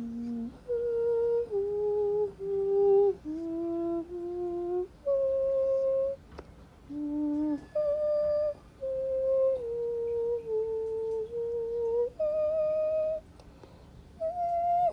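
A person humming a slow lullaby tune, steady held notes stepping up and down in short phrases.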